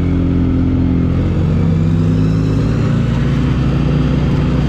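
Off-road vehicle's engine running steadily under way, its pitch drifting only slightly.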